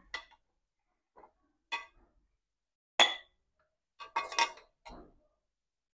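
Serving spoon clinking and scraping against a metal kadai and a plate as fried food is dished out: a handful of separate clinks, the sharpest about three seconds in and a quick run of them just after four seconds.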